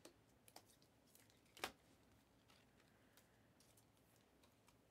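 Near silence with a few faint clicks and taps of trading cards being handled, the sharpest one about one and a half seconds in.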